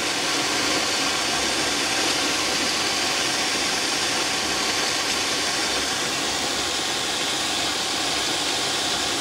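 Stainless variable-speed booster pump running flat out at its 1.4 kW limit, with water rushing through the pipework at high flow: a steady rushing hiss over the motor's hum. The pump is maxed out and cannot hold 3 bar at this flow.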